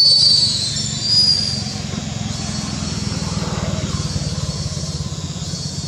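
A motor running steadily: a low, evenly pulsing drone with no change in speed. A high shrill whine sits over it in the first second or so, then fades.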